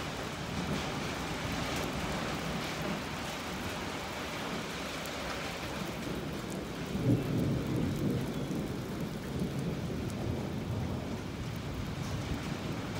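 Steady rain falling, with a roll of thunder about halfway through that rumbles low and fades away over a few seconds.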